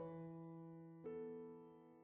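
Soft background piano music: a chord struck at the start and another about a second in, each left to ring and fade.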